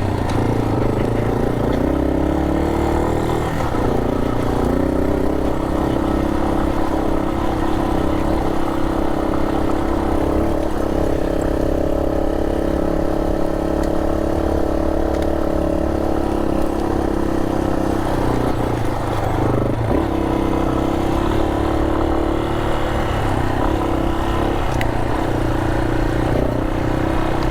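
Yamaha Serow 250's single-cylinder four-stroke engine under way. It picks up revs in the first couple of seconds and then pulls steadily, easing off and back on about two-thirds of the way through.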